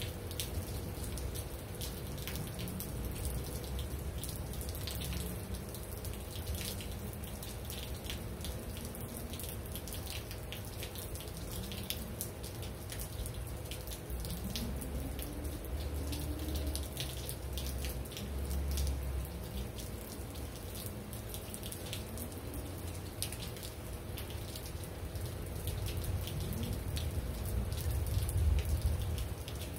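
Steady rain falling, with many close drops and drips ticking over an even hiss. A low rumble runs underneath and grows louder near the end.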